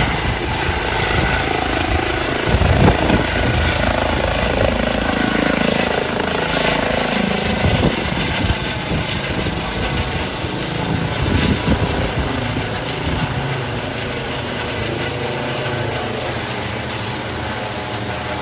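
Aircraft engine noise: a loud, continuous drone with many steady tones over a constant hiss, easing off a little over the second half.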